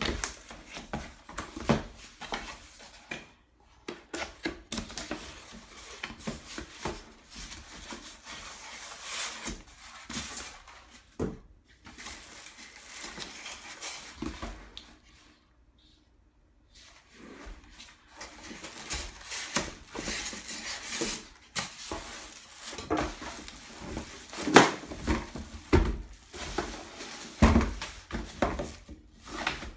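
A cardboard box being opened and its packaging handled: irregular knocks, scrapes and rustling of cardboard and inserts, with a brief pause about halfway through.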